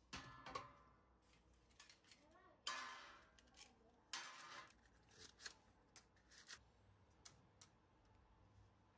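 Faint kitchen handling sounds: three short rasping scrapes, about a second apart at first, then a few light clicks and taps.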